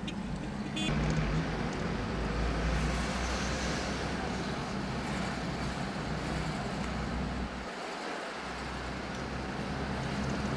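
Engine and road noise heard from inside a moving car in city traffic: a steady low hum under an even rush, the low hum briefly dropping away about eight seconds in.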